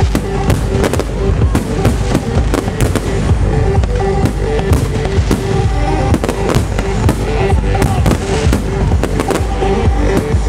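Aerial firework shells bursting in quick, irregular succession, many sharp bangs, over loud trance music playing from the display's sound system.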